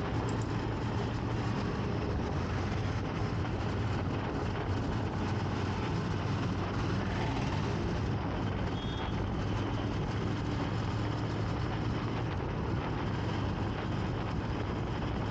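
Motorcycle being ridden through city traffic: steady engine hum with road and traffic noise.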